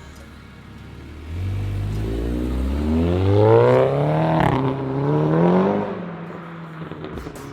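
Volkswagen Scirocco R's turbocharged 2.0-litre four-cylinder through a non-resonated 3-inch stainless Scorpion turbo-back exhaust under hard acceleration: the engine note climbs in pitch from about a second in, breaks briefly in the middle, climbs again, then falls away as the throttle is lifted near the end.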